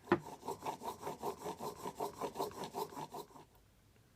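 Block plane blade held in a honing jig, rubbed quickly back and forth on a sharpening stone in rhythmic scraping strokes, about six a second, stopping about three seconds in. This is the honing of the 25-degree primary bevel, taking out the grinding (linishing) marks.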